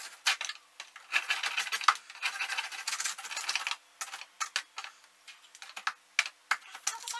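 A knife scraping and chipping at thick ice around a freezer drawer that is frozen shut. There are two runs of gritty scraping in the first few seconds, then scattered sharp clicks and taps.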